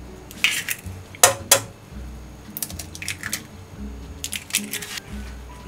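Eggs being cracked into a nonstick frying pan: several sharp taps and cracks of eggshell against the pan, scattered irregularly, with soft background music.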